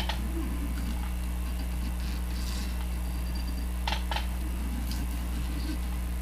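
Steady low electrical hum with a few light clicks of fly-tying tools and materials being handled at the vise: one near the start and two close together about four seconds in.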